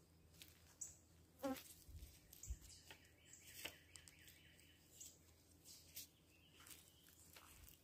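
Near silence: faint outdoor ambience with a few faint, short chirps and clicks.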